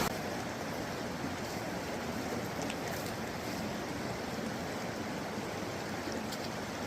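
Creek water flowing over rocks, a steady rushing noise, with a few faint high ticks.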